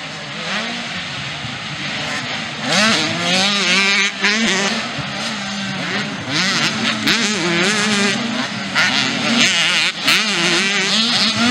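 Small youth motocross bikes racing past, their engines revving up and down as they climb jumps and take the turns, several bikes overlapping. The sound swells loudest as riders come by, about three seconds in and again several times later.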